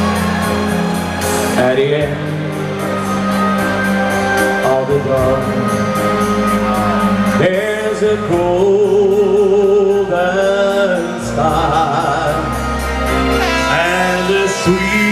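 A man singing into a handheld microphone over amplified backing music with a steady beat. Around the middle he holds a long note with a wide vibrato.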